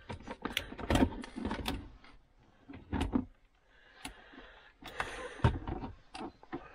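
Plastic clicks, knocks and rattles as a Volvo V70's air-conditioning and heater control panel is pried loose from its clips and lifted out of the dashboard centre console.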